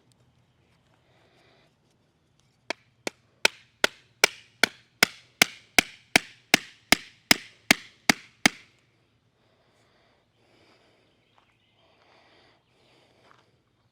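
A hammer striking wood in a quick, even run of about sixteen sharp blows, roughly two and a half a second. The first two blows are softer, and the run stops about halfway through. This is typical of driving a wooden marker stake into the ground.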